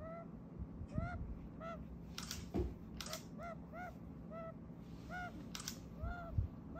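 Senegal bushbaby (lesser galago) giving its chattering call, a string of short rising-and-falling chirps about two a second, the affectionate call that also resembles its call to its mother. A few sharp clicks come in between.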